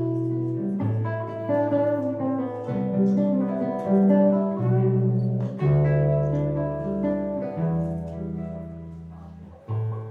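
Instrumental music: a guitar plucking notes over held low notes that change about every second, with no singing.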